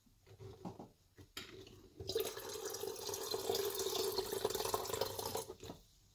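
Filtered water poured from a plastic filter jug into an electric kettle: a few light knocks first, then a steady stream of water filling the kettle from about two seconds in, stopping shortly before the end.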